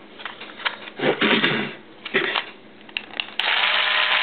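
Hard plastic parts of a Dye Rotor paintball loader clicking and clattering as it is put back together. A little over three seconds in, a steady electric-motor whir starts abruptly and is the loudest sound.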